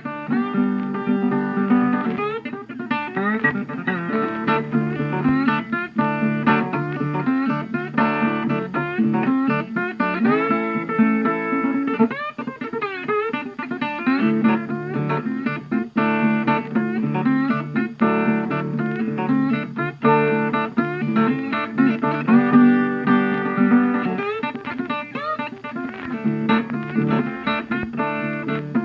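Background music: plucked guitar with some sliding notes, in a bluesy style.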